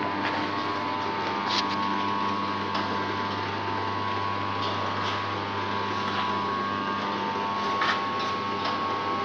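Small biscuit-making machine running steadily, a constant motor hum and whine with a few light clicks and knocks now and then.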